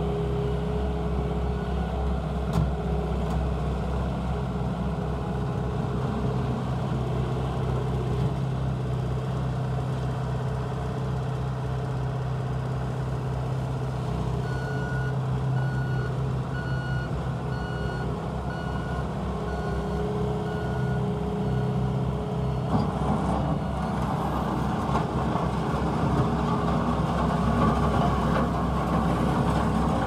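Bobcat A770 skid steer's diesel engine running steadily as the machine drives and works its bucket. About halfway through, its backup alarm beeps about ten times, evenly spaced over some six seconds, and in the last several seconds the engine runs louder.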